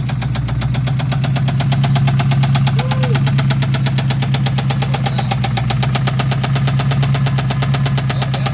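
Ford Mustang SN95's 4.6-litre two-valve V8 running with a steady, rapid knocking, about ten knocks a second: the rod knock the engine is known to have.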